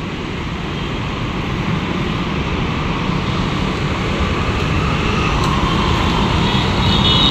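Road traffic on a busy city street, a steady rushing noise that grows slowly louder.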